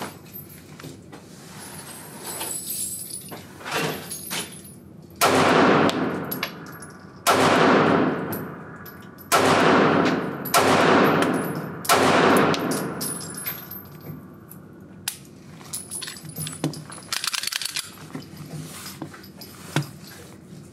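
Springfield Armory Hellcat micro 9mm pistol fired five times at a slow, deliberate pace, each shot a loud bang ringing out down an indoor range. Fainter bangs and clicks come before and after.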